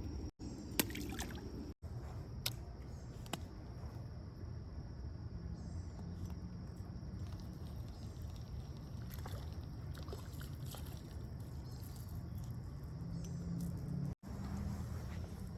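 Creek water running steadily, with a few sharp clicks in the first few seconds and faint high chirps of birds or insects.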